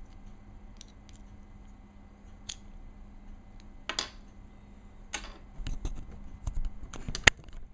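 Small metal Glock pistol parts clicking and clattering as they are handled and set down. The clicks grow louder and more frequent about halfway through, and a single sharp click near the end is the loudest.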